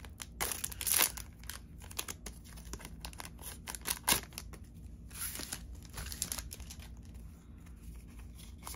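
Trading card booster pack wrapper crinkling and being torn open: irregular rustles, with the loudest crackles about a second in and about four seconds in.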